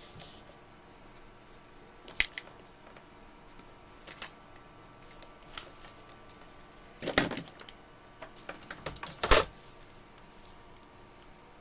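Handling noise from the hand-held camera and the equipment on the worktop: scattered sharp clicks and taps, a quick cluster of them about seven seconds in and the loudest knock about nine seconds in, over a faint steady hum.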